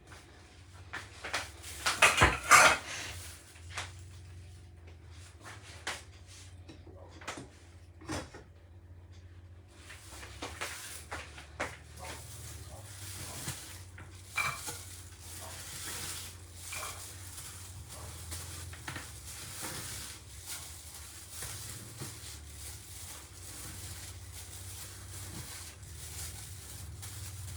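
A small cooking pot and utensils clattering and clinking as chopped ingredients go into the pot, loudest about two seconds in. From about ten seconds a steady hiss sets in under occasional clinks.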